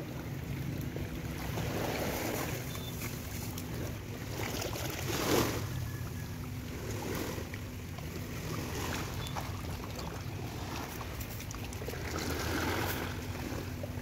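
Wind on the microphone over a steady low hum, with small waves washing against the shore.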